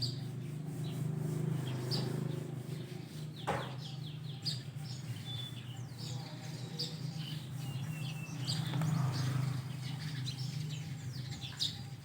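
Wild birds chirping and twittering, many short high calls and quick falling notes scattered throughout, over a steady low hum.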